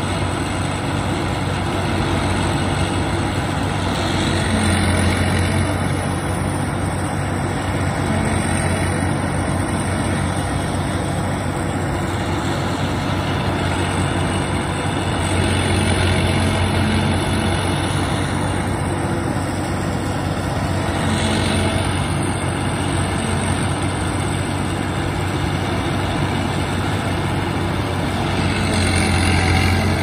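New Holland FX48 forage harvester running steadily under load while it chops whole corn plants and blows the chopped fodder into a trailer. The drone swells louder several times with a rising and falling high whine.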